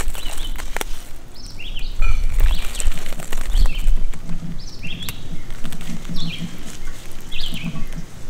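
Birds chirping in short descending calls, about one every second or so, over scattered clicks and rustling from shishito peppers being picked off the plants. A low rumble swells about two seconds in and fades about four seconds in.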